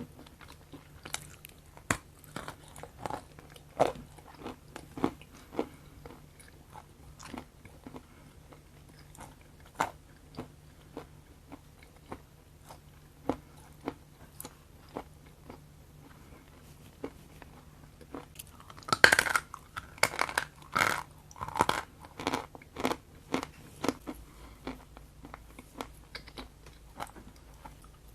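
Close-miked biting and chewing of a crunchy food: scattered single crunches, then a louder run of bites and crunching about two-thirds of the way through.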